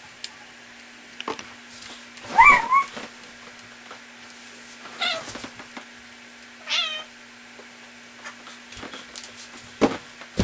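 Three short, high meow-like calls about two seconds apart, the later ones falling in pitch, then a sharp knock near the end.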